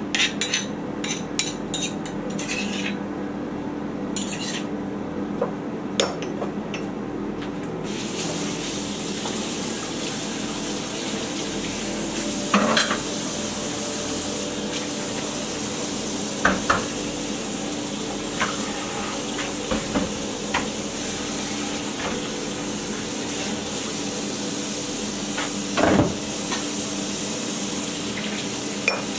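Dishes clinking and clattering at a kitchen sink, then a tap turned on about eight seconds in and water running steadily as the dishes are rinsed, with a few knocks of crockery against the sink.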